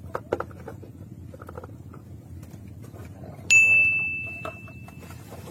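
A small metal bell struck once about three and a half seconds in, giving a clear, high ring that fades over about a second and a half. A few faint clicks come before it.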